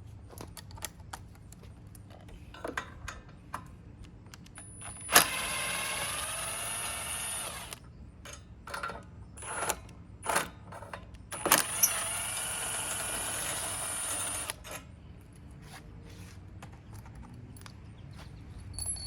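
Power drill turning a 12 mm socket runs twice, for about two and a half and then three seconds, backing out the two bolts that hold the mower's ignition coil. Light clicks and knocks of the socket and bolts are heard around and between the runs.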